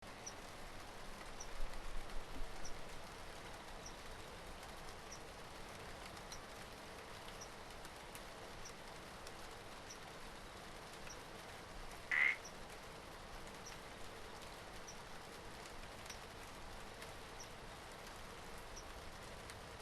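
Steady rain hiss in a jungle at night, with a faint high chirp repeating about every second and a quarter. About twelve seconds in, a single short, loud animal call stands out; a few louder low thumps come in the first three seconds.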